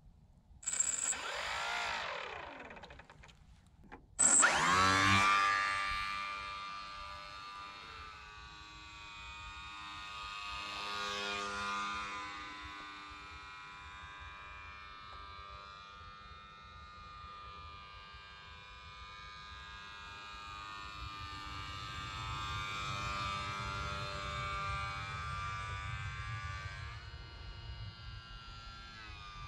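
Small 1304 3000kv brushless electric motor and 6030 propeller on a lightweight foam RC plane. It gives a short burst about a second in, then spins up sharply at about four seconds, the loudest moment. It then runs on as a buzzing whine whose pitch and loudness drift slowly up and down.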